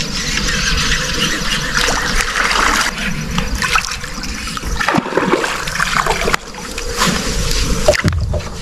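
Water splashing and trickling as a hooked bass thrashes at the surface beside the boat while it is being landed.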